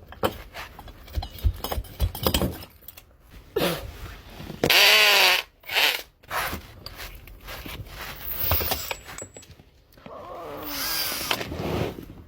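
Tool work on a hose tap: scattered clicks and knocks, with two short bursts of a power drill, the louder about five seconds in and a weaker one near the end.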